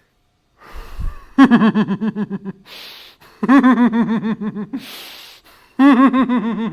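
A person giggling: three bursts of rapid "ha-ha-ha" laughter, each followed by a sharp gasping in-breath.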